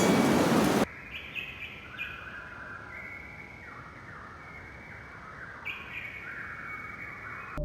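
A loud, steady rushing noise cuts off abruptly just under a second in. It gives way to birds singing, with repeated short phrases of descending notes over quiet outdoor ambience.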